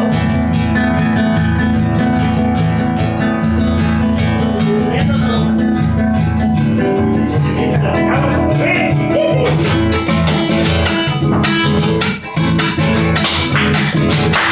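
Acoustic guitar strummed in a steady, even rhythm.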